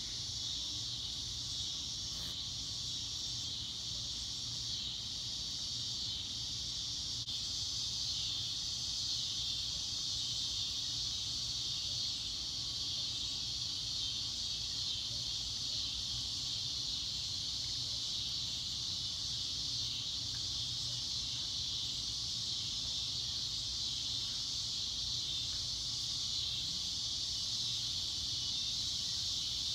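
Steady, high-pitched trilling of an insect chorus, with a low rumble underneath.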